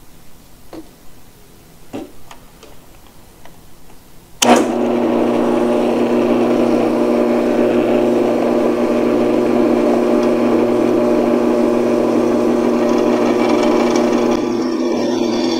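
Drill press switched on about four seconds in, its motor then running with a steady hum as the bit is fed down to drill mounting holes in a steel plate. Before it starts, a few light clicks.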